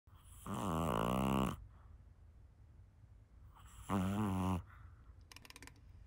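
A sleeping Chihuahua–Shih Tzu mix dog snoring: two pitched snores about three seconds apart, the first about a second long, the second shorter.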